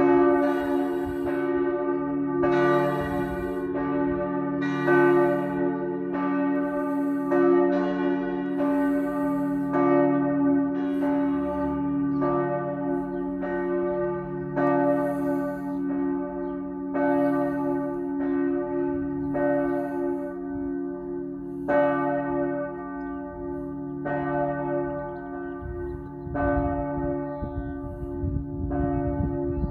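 Several church tower bells ringing together in a full peal, strokes falling about once a second over a steady, overlapping hum.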